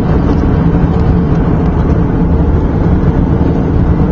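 Jet airliner cabin noise in cruise: a loud, low, steady rush of airflow and engine noise heard from a window seat.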